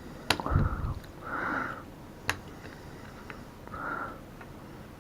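Close, audible breathing through the nose, three sniff-like breaths, with a few small sharp clicks and a soft thump as the camera and its battery plug are handled.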